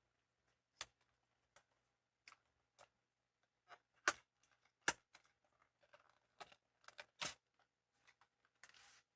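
Scattered sharp clicks and light taps from small plastic blind-box toy pieces and packaging being handled, with a brief soft rustle near the end.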